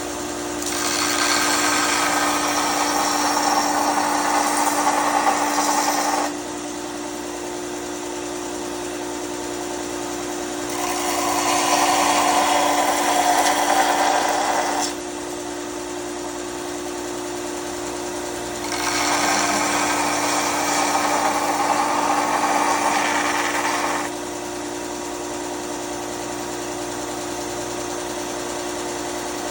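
Bauer belt grinder running with a steady motor hum, with a knife blade pressed to the belt three times for about five seconds each to grind a bevel. Each pass is a rasping grind over the hum.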